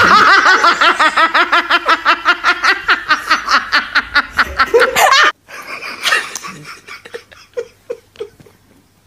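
A person laughing hard in a long, rapid run of high-pitched pulses. The laughter cuts off abruptly about five seconds in, leaving only faint scattered sounds.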